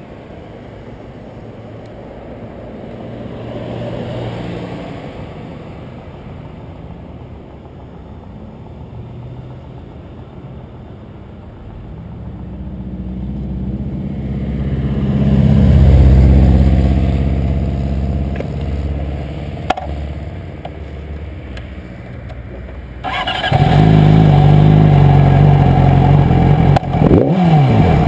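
Passing road traffic swells and fades, loudest a little past halfway. Then, about three-quarters of the way in, the 2008 Yamaha R6's inline-four engine starts abruptly and settles into a steady idle.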